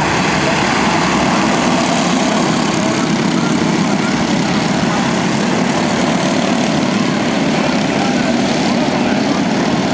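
A pack of small four-stroke racing karts running together on the track, a steady buzz of many engines with pitches wavering over one another.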